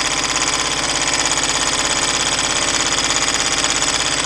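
Homemade beta-type Stirling hot air engine running steadily, with a fast, even, rhythmic mechanical clatter from its crank and linkage. The builder says it is running smooth even though it doesn't sound like it.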